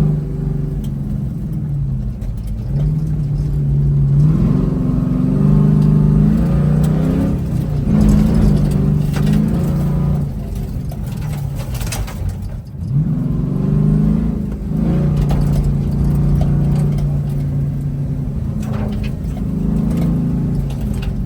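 Pickup truck engine running hard on a dirt track, its pitch climbing and dropping back several times as it accelerates and eases off. A rough, rushing noise with scattered clicks comes through about halfway in.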